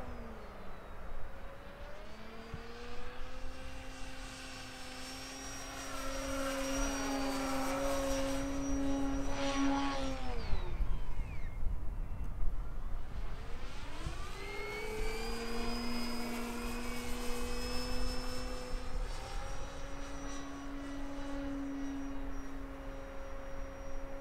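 Electric RC model airplane's motor and propeller whining in flight, a steady pitched drone with a thin high whine above it. The pitch slides down about ten seconds in as the throttle is pulled back, rises again a few seconds later as power is added, and drops once more at the end.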